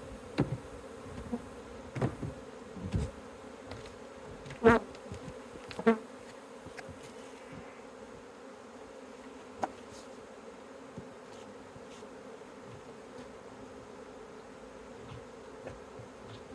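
A swarm of honeybees humming steadily in a massed drone, with a few brief louder sounds in the first six seconds.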